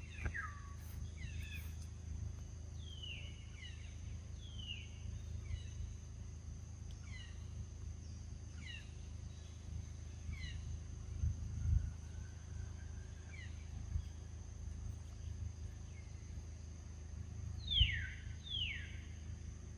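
Forest ambience: a steady high insect drone, with short falling animal chirps repeating about once a second over a low rumble. A few dull thumps stand out, the loudest a little past halfway and near the end.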